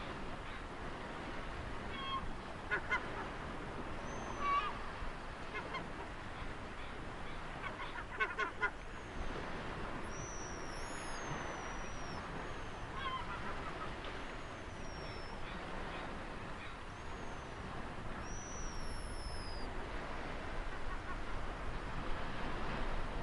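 Steady wash of ocean waves with birds calling over it: short calls, some in a quick run about eight seconds in, and several high whistles that fall in pitch.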